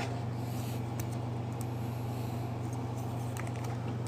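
Steady low electrical hum, with a few faint light ticks.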